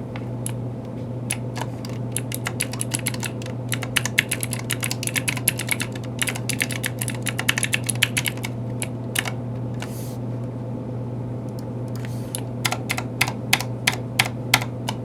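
Typing on a Planck ortholinear keyboard with Kailh Pro Light Green clicky switches: fast runs of sharp key clicks, a pause of about three seconds past the middle, then a slower handful of keystrokes near the end.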